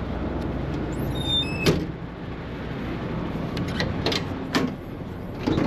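An engine running with a steady low rumble, a brief high squeal just after a second in, then a sharp bang at about a second and a half, followed by a few lighter knocks.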